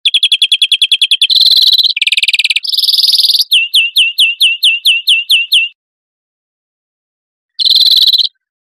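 European greenfinch song: fast trills and a lower buzzy phrase, then a run of about nine sharp down-slurred notes at about four a second. After a gap of about two seconds comes one more short trill near the end.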